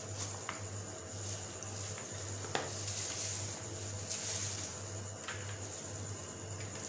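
Quiet kitchen handling: a few light clicks and knocks of kitchenware over a steady low hum.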